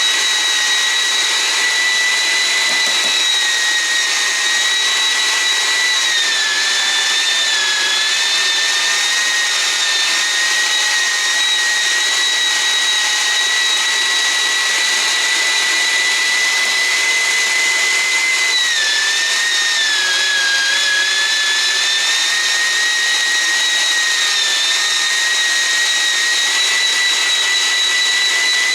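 Keenstar JSMG203 electric meat grinder running as meat is fed through it: a loud, steady high motor whine. Its pitch sags briefly twice, about six seconds in and again near nineteen seconds, as the motor takes on more load.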